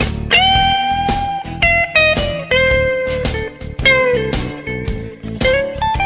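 Blues-style background music: a lead guitar playing long, held notes that bend up and down in pitch over a steady beat.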